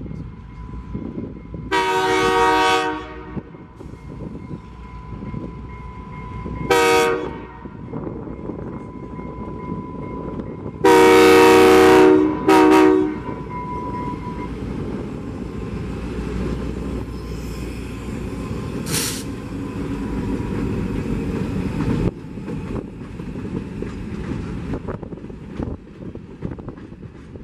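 Freight train's diesel locomotive horn sounding four blasts for a grade crossing (a long, a short, a long and a short), then the Finger Lakes Railway diesel locomotives rumble past close by, with the freight cars rolling behind them.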